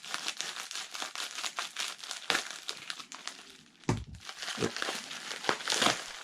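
Packaging crinkling and rustling as a package is opened by hand, with some tearing and a few louder knocks of handling, the loudest about four seconds in.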